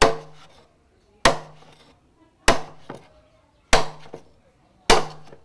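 A broad-bladed chopping knife striking a thick bamboo pole on a wooden block, five hard chops about a second and a quarter apart, each followed by a short ring. The bamboo is being cut across to take out its joints.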